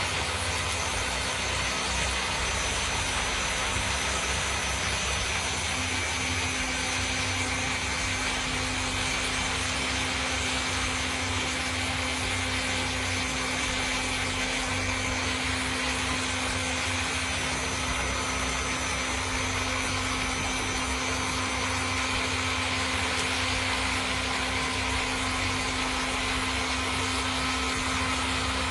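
Small electric blender with a top-mounted motor running continuously, blending cashew nuts and water into cashew milk. It gives one steady, even hum.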